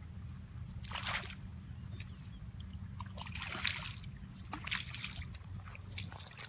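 Water splashing and sloshing in four short bursts, over a steady low hum.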